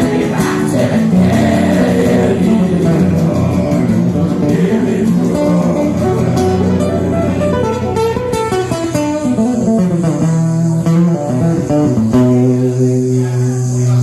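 Music with guitar and some singing, ending on a held chord near the end.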